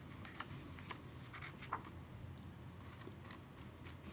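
Fingers handling the corner of a glossy picture-book page: faint scattered clicks and light paper rustles.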